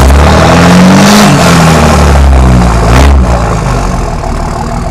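Dodge Cummins turbodiesel inline-six revved hard from idle through its exhaust stacks: the revs climb, sag, blip up again about three seconds in, then drop back to idle. These are the throttle stabs that make it belch black smoke (rolling coal).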